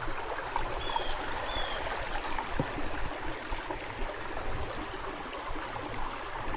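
Creek water running steadily over the stream bed, with two short faint high chirps about a second in.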